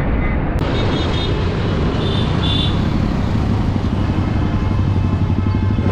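Motorcycle riding through city traffic: the engine runs steadily under a heavy rush of wind over the microphone, with surrounding traffic noise.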